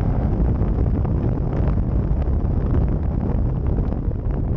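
Muffler-deleted Dodge Challenger Scat Pack cruising at a steady speed, heard from inside the cabin: a steady low exhaust rumble mixed with road and wind noise.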